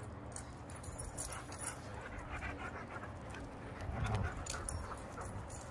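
Dogs at play, a Sheepadoodle among them: panting and scuffling, with short light clicks throughout and a louder scuffle about four seconds in.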